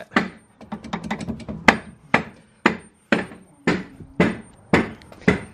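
Hammer tapping a splined billet axle stub through the rear wheel hub, the splines a tight fit. It makes a run of sharp strikes, about two a second, with quicker lighter knocks in the first second and a half.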